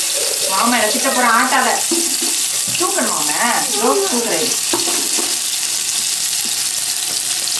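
Sliced onions frying in hot oil in an aluminium pot: a steady sizzling hiss. A voice comes over it twice in the first half.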